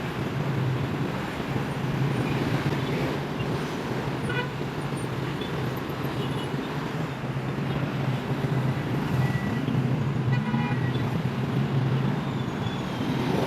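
Steady city road-traffic noise, with short pitched toots about four and ten seconds in that may be vehicle horns.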